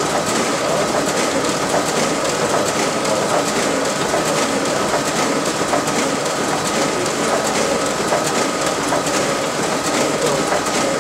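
RISO 9050 production printer running mid-job, feeding and printing sheets through a long duplex run. It makes a continuous mechanical rattle of rapid clicks over a thin, steady whine.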